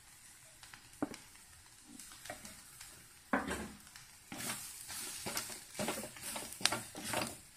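A wooden spatula stirring freshly added grated coconut into sautéed shallots and chillies in a clay pot, scraping repeatedly against the earthenware, with the mix frying faintly on the heat. It starts with a single knock about a second in, and the stirring starts about three seconds in and carries on.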